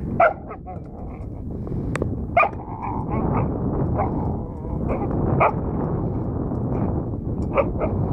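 A dog growling and giving short yips and barks as it plays with a metal bowl, with a sharp knock about two seconds in, over a steady low rumble.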